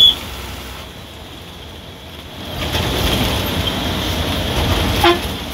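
Bus engine and road noise heard from inside the cab, growing louder about two and a half seconds in, with a short horn toot near the end.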